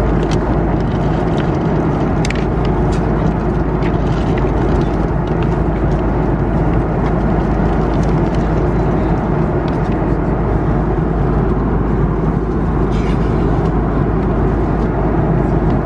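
Steady cabin noise of an Airbus A330-300 in flight: a constant low roar of engines and airflow inside the passenger cabin, with a few light rustles of magazine pages being turned.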